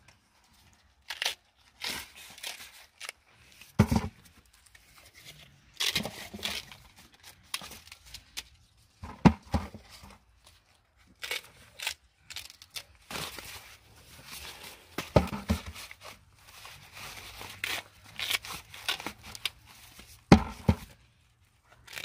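Husks being torn off fresh-picked ears of corn, in irregular short rips and crinkles, with a few dull thumps.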